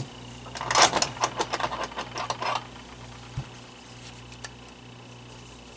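Small fan parts and wires being handled during repair: a quick run of clicks and rattles lasting about two seconds, then a few single clicks, over a steady low hum.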